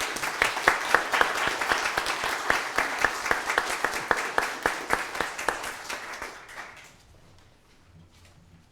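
Congregation applauding to welcome a newly installed pastor, with many hands clapping; the applause fades out about seven seconds in.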